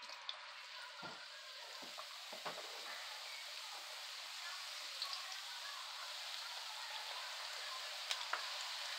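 Raw russet potato slices, a fresh batch just added, deep-frying in hot oil in a frying pan: a steady sizzle that slowly grows louder, with scattered pops and crackles.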